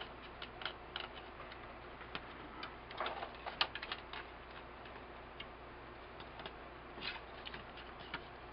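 Faint, irregular light clicks and taps of wires and small parts being handled and fitted inside an opened LCD monitor, with a short flurry of clicks about three seconds in.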